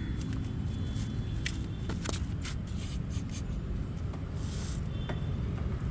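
Motorcycle control-lever pivots being worked after a spray of chain lube: scattered sharp clicks and light scrapes, with a short aerosol hiss about four and a half seconds in, over a steady low rumble.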